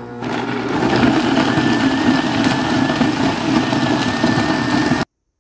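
Countertop blender motor running at full speed, churning boiled chicken feet and bones in gelatin broth into a smooth liquid: a steady, loud whine over a churning rumble. It steps up to full speed just after starting and stops abruptly about five seconds in.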